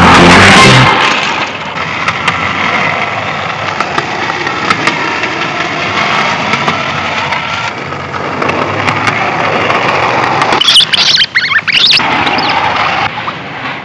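Skateboard wheels rolling on pavement, a steady rough rumble with faint ticks, after a rock music cue ends about a second in. High wavering squeals come in briefly about two-thirds of the way through.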